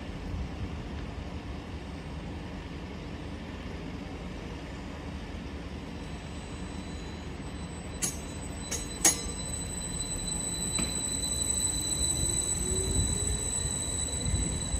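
Electric multiple unit pulling out of the platform: a few sharp clicks about eight to nine seconds in, then a steady high whine and a rising motor pitch as it gathers speed and the running noise grows louder.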